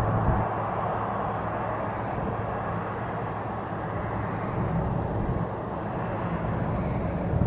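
Jet airliner's engines, a steady rushing roar with a low rumble underneath.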